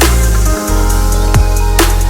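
Electronic background music with a heavy deep bass and a steady drum beat.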